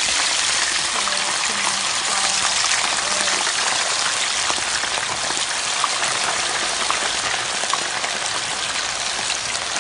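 Raw potato fries deep-frying in hot oil just after going in: a loud, dense, steady sizzle with scattered small pops, easing slightly toward the end.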